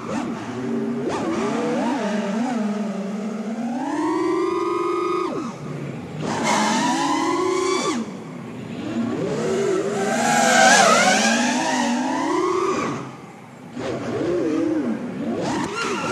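Five-inch FPV racing quadcopter's brushless motors (Emax RSII 2306 2400kv) whining, the pitch rising and falling with the throttle. It drops off briefly a little before the end.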